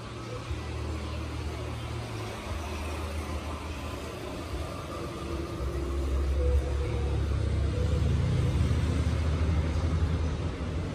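Low rumble of road traffic, growing louder about six seconds in.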